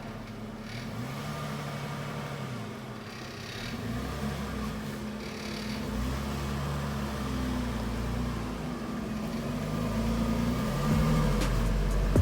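A motor vehicle engine running, its pitch rising and falling several times every couple of seconds and growing steadily louder.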